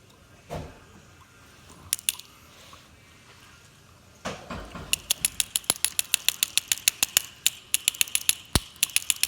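Rapid sharp metallic tapping on a deadbolt lock cylinder, about six taps a second starting about five seconds in, to work a broken key that is stuck in the cylinder loose. A few single clicks and a dull knock come before the taps.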